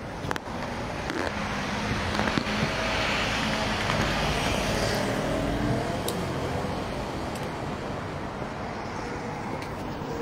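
Street traffic noise: a steady hum of road vehicles that grows louder for a few seconds from about two seconds in, with a few light clicks.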